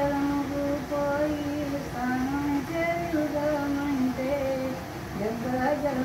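An 88-year-old woman singing a Telugu devotional song (bhakti song) to Lord Rama, unaccompanied, in a series of long held notes that step up and down between short breaths.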